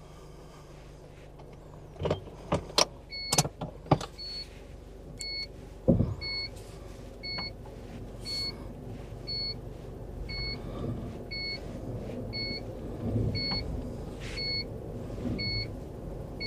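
Mazda Bongo Friendee's reverse buzzer beeping about once a second over the van's engine running as it reverses. A few sharp clicks and a knock come in the first six seconds.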